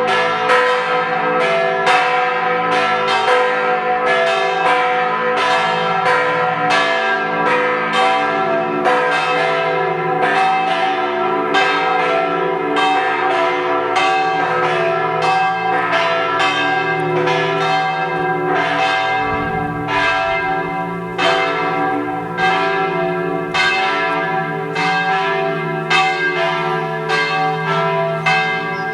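Matera Cathedral's church bell ringing the noon peal, struck in a fast even rhythm of about two strokes a second, the ringing tones overlapping into a continuous peal.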